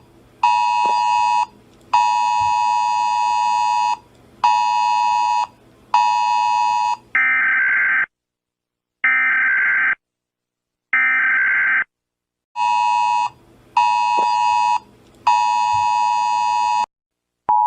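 Emergency Alert System alarm tones: a harsh, buzzy two-tone beep near 1 kHz sounding in on-off blasts of one to two seconds. Midway it gives way to three higher, screechy digital data bursts of about a second each, like EAS data-header bursts, before the beeping resumes.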